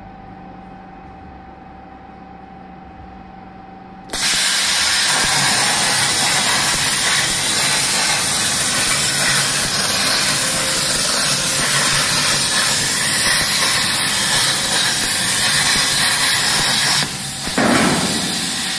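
Pro-Plas 1530 CNC plasma cutter cutting sheet steel. A steady machine hum with a thin steady tone, then about four seconds in the plasma arc strikes with a sudden loud, even hiss that holds for about thirteen seconds. Near the end the hiss drops, flares once more and fades out.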